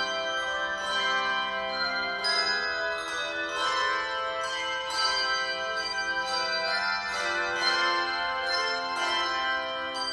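Instrumental music of struck, ringing bell-like tones, several notes sounding together, with new notes struck about every half second to a second.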